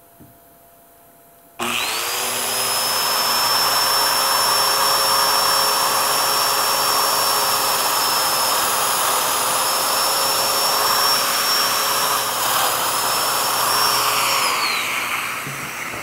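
Festool Domino joiner and its dust extractor switch on together about a second and a half in, spinning up to a steady high whine while a mortise is cut in the board. Near the end the motor is switched off, and the whine falls in pitch as it winds down.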